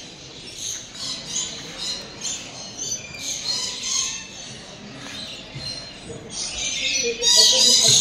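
A flock of birds chirping and squawking in many short, overlapping high calls, growing busier and louder near the end.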